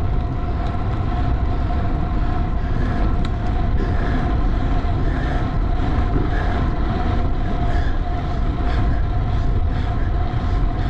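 Wind and road noise of a time-trial bicycle ridden at race speed: a steady low rushing with a constant hum over it.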